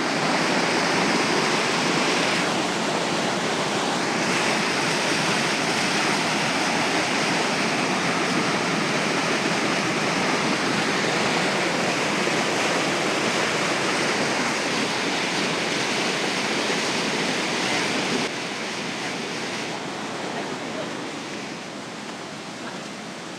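Waterfall water rushing in a steady, loud roar of noise, which drops suddenly to a quieter level about eighteen seconds in.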